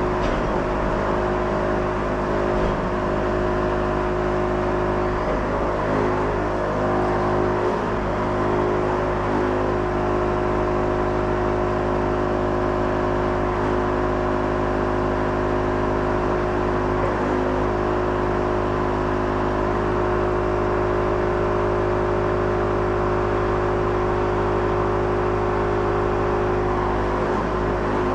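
Wood-Mizer LT70 bandsaw sawmill running at a steady, unchanging pitch.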